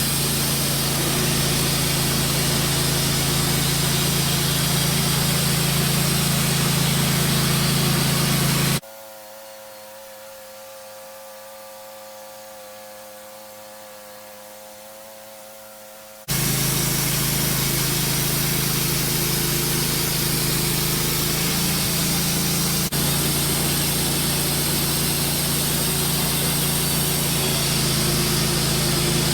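Stihl chainsaw in a Granberg Alaskan chainsaw mill running hard while ripping through a big white pine log, loud and steady. About nine seconds in it drops abruptly to a much quieter steady tone for about seven seconds, then the full cutting noise comes back just as abruptly.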